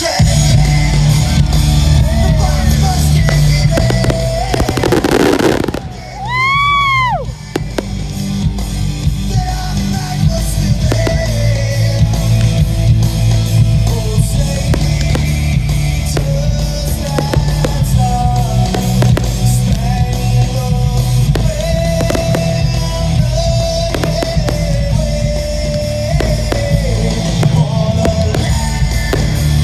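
Loud rock-style music soundtrack with guitar and a heavy bass line playing over a fireworks show, with scattered firework bangs mixed in.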